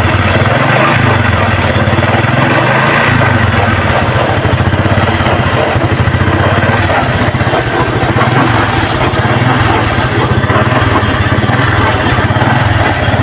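Honda XRM 125 fuel-injected single-cylinder engine running in gear with light revving, the pitch rising and falling a few times. It has a knocking from the bottom of the engine in every gear, the fault that leads to its teardown.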